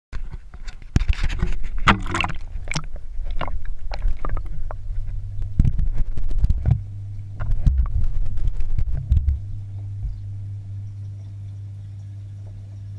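A camera plunged into a fish tank: splashing and sloshing for the first few seconds, then muffled underwater knocks and thumps as it is moved about, settling after about ten seconds into a steady low hum.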